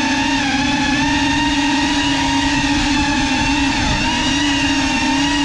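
FPV quadcopter's brushless motors and propellers whining in steady flight, heard close up from the onboard GoPro; the pitch wavers slightly and dips briefly about four seconds in.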